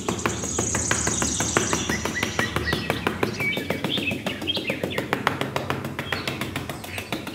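Small metal trowel scraping and smoothing sand across a board, a dense gritty scratching made of many quick ticks, with birds chirping over it.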